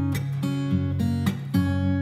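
Background music: strummed acoustic guitar chords at a steady, regular pace.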